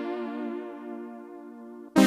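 Roland D-05 synthesizer patch sounding a held chord that slowly fades, its bright upper tones dying away first, and stops just before the next chord is struck near the end.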